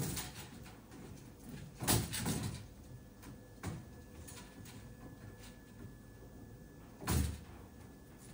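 A clear plastic scallop window being handled into place against the wire mesh of a black wire-mesh trap, giving a few separate clattering knocks. The louder knocks come about two seconds in and near the end.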